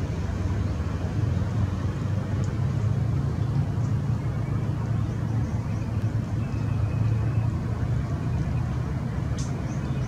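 Steady low drone of a distant engine, with a few faint, short high chirps over it.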